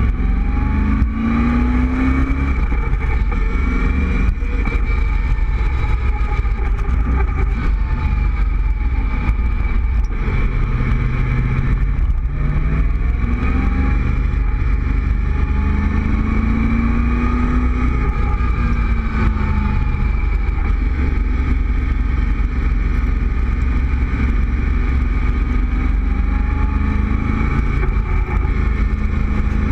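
Cobra roadster's engine pulling along at road speed, its note rising several times under acceleration and dropping back between, with wind rushing over the open cockpit.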